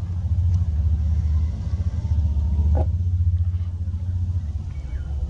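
Wind buffeting the microphone: a loud, uneven low rumble, with a short click near the middle.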